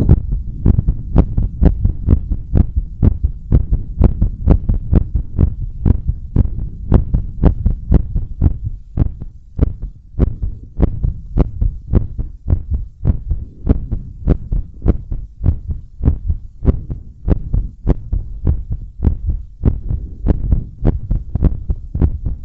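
A human heartbeat picked up close by a microphone strapped against the chest, beating fast and evenly, about two to three thumps a second.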